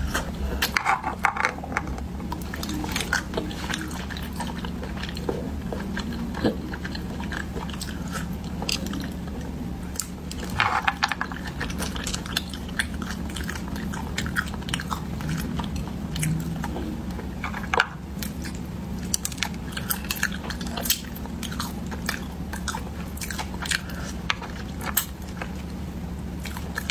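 Close-up eating of spiced sea snails: chewing and biting, with a few louder sucking or slurping bursts and many small clicks as the shells are handled and picked at.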